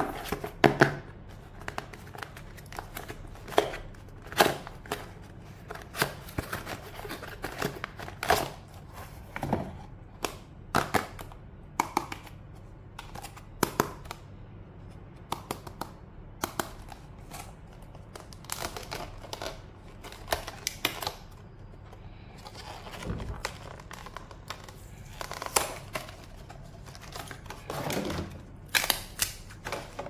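Unboxing handling sounds: a kraft cardboard box being slid and opened, then a clear plastic blister package being handled, giving irregular taps, clicks and scrapes of cardboard and plastic.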